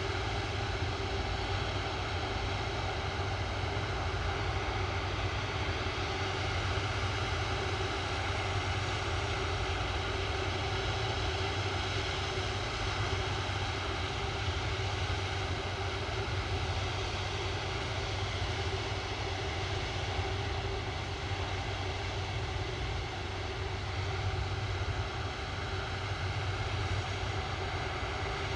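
Airbus A330-300 jet engines running steadily, a whine of held tones over a low rumble, with no rise or fall in power.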